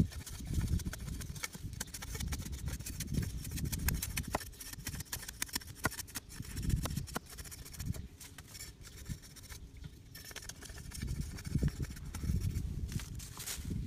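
Cleaver blade scraping and shaving a thin bamboo stick held against a rotten log: irregular scraping strokes with many small clicks.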